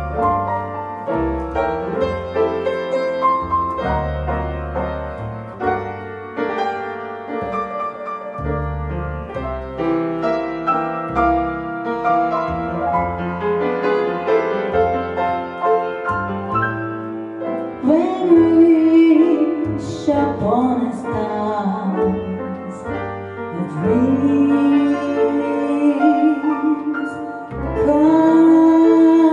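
Jazz trio of piano and plucked upright bass playing, joined about halfway through by a woman's singing voice holding long notes with vibrato.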